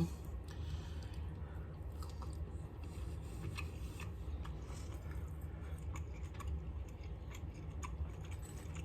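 A person chewing a bite of meatless sausage patty, with small scattered clicks and crunches over a steady low hum.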